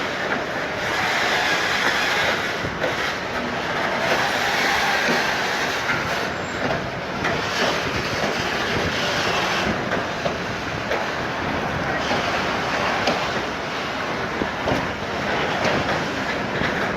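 Train cars rolling past on the rails, wheels clacking over rail joints amid a steady rush of noise, with some wheel squeal.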